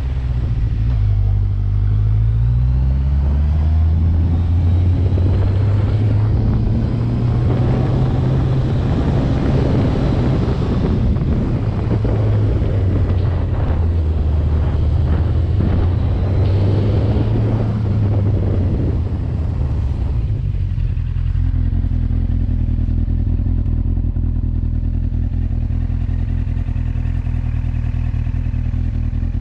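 Motorcycle engine under way: the revs climb over the first few seconds, then hold fairly steady with small rises and falls. About two-thirds of the way through it drops to a lower, steady note, as when rolling off the throttle or idling.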